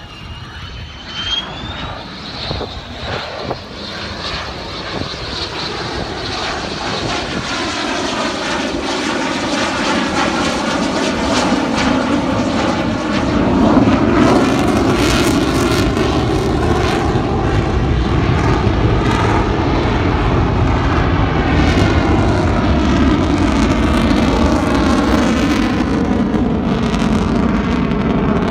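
F-16 fighter jet flying a display pass, its jet engine roar growing steadily louder and staying loud from about halfway, the tone of the roar sweeping up and down as the jet moves across the sky.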